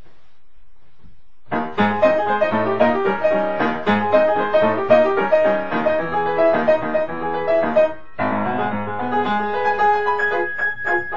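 Piano music starting suddenly about a second and a half in, a flowing run of notes that pauses briefly around eight seconds in and then carries on.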